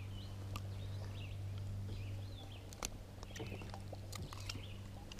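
Scattered light clicks and ticks of long-nosed pliers and lure hooks while a hooked northern pike is being unhooked by hand, over a steady low hum and faint bird chirps.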